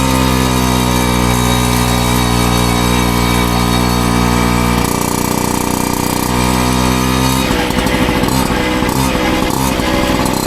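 Piaggio Ciao moped's small two-stroke single-cylinder engine running through an aftermarket Giannelli exhaust, with a steady note. The pitch shifts about halfway through, and the note turns rough and uneven for a few seconds near the end before steadying again.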